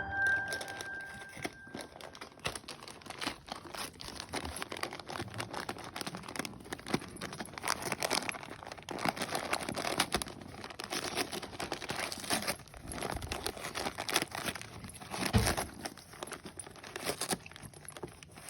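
Dog tearing and crumpling the paper wrapping off a present: an irregular run of rustles and rips.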